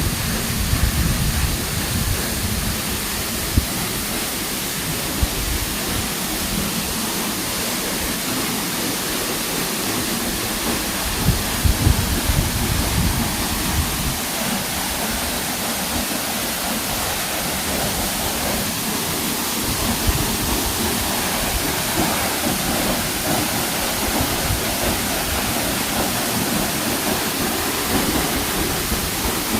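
Rushing water of a waterfall and its river, a steady, even noise, with now and then a low rumble underneath.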